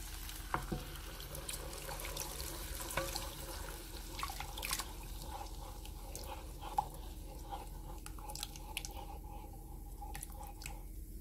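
Thin starch batter poured in a stream into a pot of boiling water and stirred with a wooden spoon: wet splashing and dripping with scattered light taps of the spoon on the pot. A bubbling hiss fades about halfway through.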